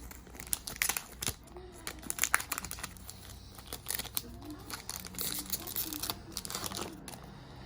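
Plastic wrapper of a trading-card pack crinkling and tearing as it is ripped open, with irregular crackles throughout.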